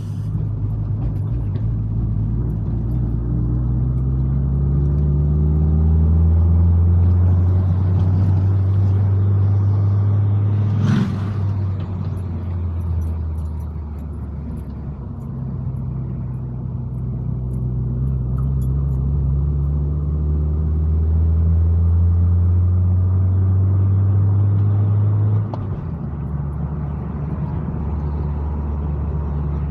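Car engine pulling uphill with a steady drone that slowly rises in pitch. About eleven seconds in there is a short sharp noise and the pitch falls back. It climbs again, then drops off suddenly a few seconds before the end.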